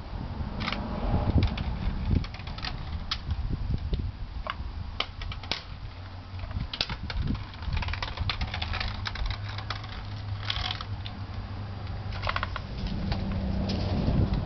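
Scattered light clicks and ticks, thickest in the middle, over a steady low hum that grows louder near the end.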